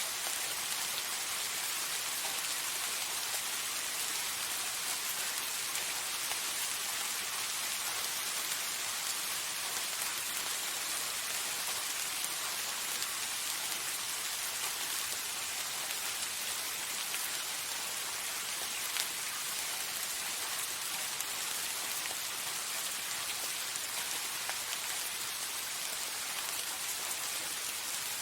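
Steady rain falling, a dense even hiss of many drops hitting a surface.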